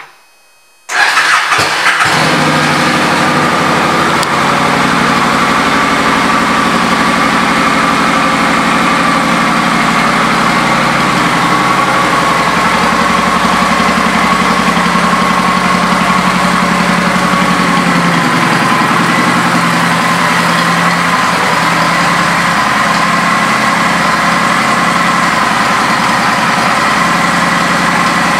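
2006 Victory Hammer's 100-cubic-inch V-twin engine starting about a second in, then idling steadily.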